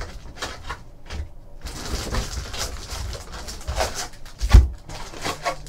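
A cardboard trading-card hobby box being opened and its foil-wrapped packs handled and pulled out: irregular crinkling, rustling and scraping, with one louder knock about four and a half seconds in.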